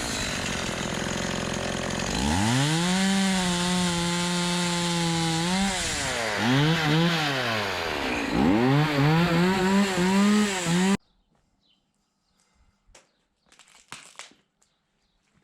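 Chainsaw running and cutting wood, its engine pitch rising and dropping repeatedly as it revs and comes under load. It cuts off suddenly about eleven seconds in, leaving a few faint knocks.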